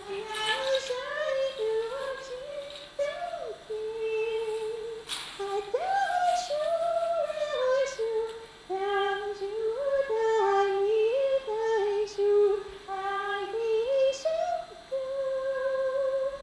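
A woman's voice singing a slow melody alone, without instruments, in short held notes that step up and down. A sharp click sounds about five seconds in.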